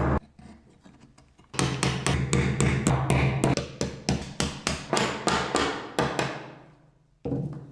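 A rapid, even run of hammer blows on wood, about five a second, starting about a second and a half in and dying away after about five seconds, with one more knock near the end.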